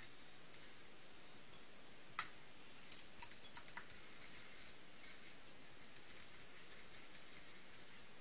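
Small, sharp metal clicks of a ball-end hex wrench working the engine mounting screws out of the motor mount: a single click about two seconds in, a quick cluster around three to four seconds, then fainter ticks.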